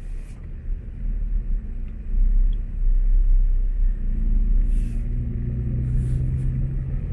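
Vehicle engine running with a heavy low rumble, as heard from a vehicle being driven; a steady engine drone comes in about four seconds in.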